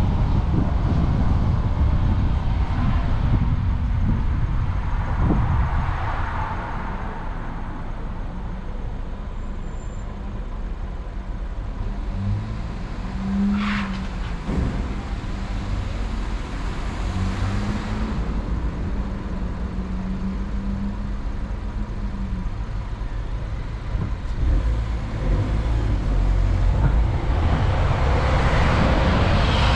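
Car road and wind noise while driving, fading as the car slows to a stop at a traffic light; while stopped there is a quieter low, steady engine hum. Near the end the noise builds again as the car pulls away and an oncoming motorcycle passes close by.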